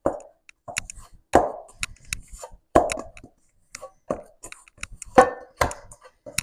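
Hands kneading whole wheat poori dough: a soft thud every second or so as the dough is pressed and turned, with light clicks in between.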